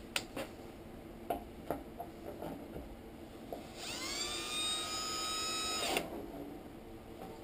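A few clicks and knocks as a cordless drill is handled and set in place, then the drill's motor spins up with a quickly rising whine, runs steadily for about two seconds and stops abruptly.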